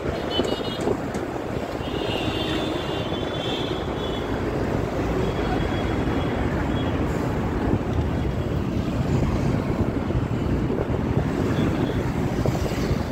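Steady road noise and wind from a vehicle on the move, with traffic running alongside. A few short high-pitched tones sound in the first few seconds, and a thin high tone briefly around the middle.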